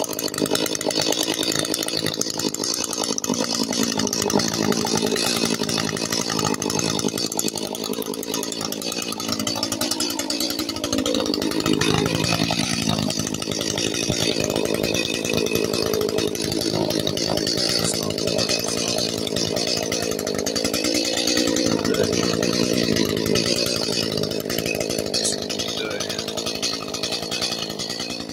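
Two-stroke chainsaw running at full throttle while cutting trees, its engine note shifting twice, around eleven and twenty-one seconds in.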